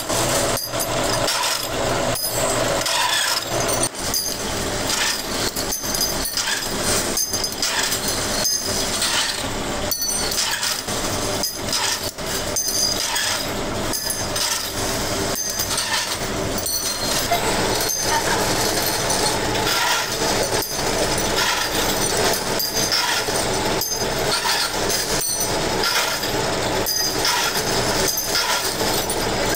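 Workshop machinery running steadily, with frequent clicks and clinks of cast metal motorcycle clutch levers being handled.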